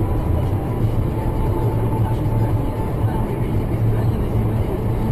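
A car driving: steady engine and road rumble, with a faint thin whine above it.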